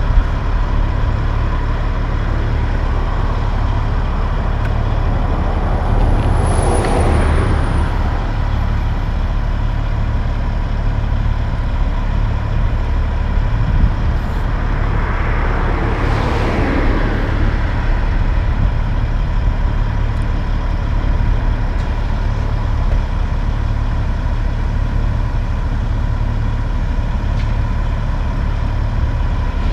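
Diesel engine of a Peterbilt 379 car-carrier truck idling steadily, with a thin steady whine over it. Two swells of passing traffic rise and fall, about six and fifteen seconds in.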